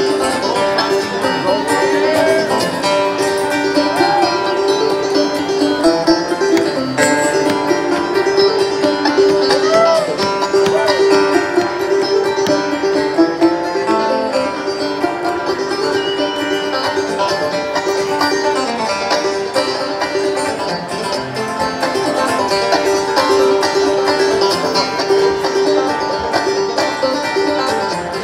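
Clawhammer banjo and acoustic guitar playing a bluegrass tune live, heard through a concert PA system.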